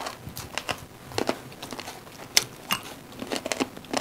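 Close-up eating sounds: chewing and wet mouth smacks of people eating rice and chicken gravy by hand, with irregular short clicks, the sharpest about two and a half seconds in.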